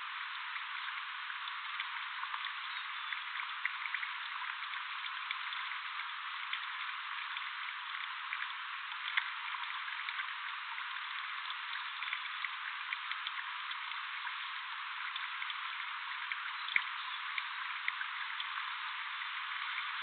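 Light patter of water drops from a black-capped chickadee bathing and flapping in a bird bath, scattered small ticks over a steady hiss, with one sharper click near the end.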